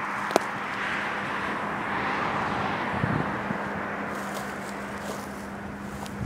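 Diesel locomotive idling: a steady hum with a constant low tone, and one sharp click about half a second in.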